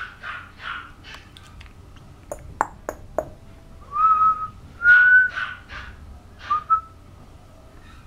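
Three short, high whistles from a person, the middle one the longest and loudest, after a quick run of sharp tongue clicks. These are the sounds used to call a puppy's attention.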